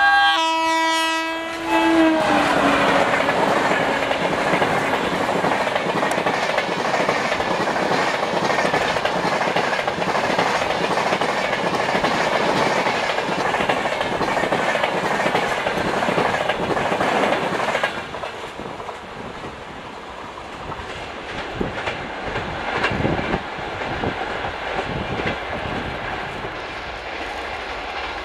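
WAP-4 electric locomotive's horn sounding as it passes close, its pitch dropping as it goes by, followed by the Duronto Express coaches rushing past with a dense clickety-clack of wheels over the rail joints. About eighteen seconds in the sound drops suddenly, and fainter wheel clatter continues as the train moves away.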